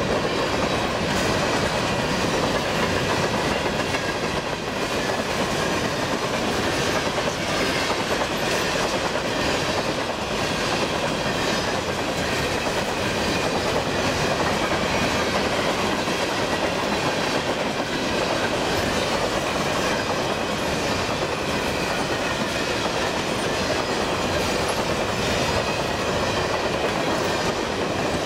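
Empty covered grain hopper cars of a freight train rolling steadily past, their wheels rumbling on the rails and clicking over the rail joints again and again.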